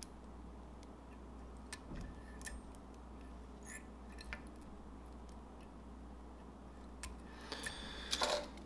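Faint, scattered small clicks and light metallic taps from a wire whip-finish tool and thread being worked around a fly held in a vise, with a short cluster of louder clicks near the end.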